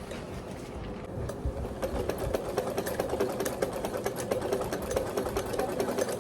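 Sewing machine stitching fabric in a rapid, even run of needle strokes, getting louder about two seconds in.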